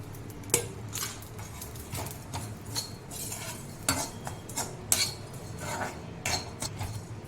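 A spoon scraping and clinking against a pan while stirring whole spices (pepper, cumin, fennel, poppy seeds) as they roast, in irregular clicks and scrapes.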